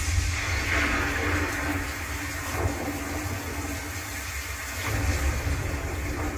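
Storm sound effects from a Dolby demo trailer played through a Philips Fidelio TAFB1 soundbar and heard in the room: a steady hiss of rain over a deep, heavy rumble, swelling slightly about five seconds in.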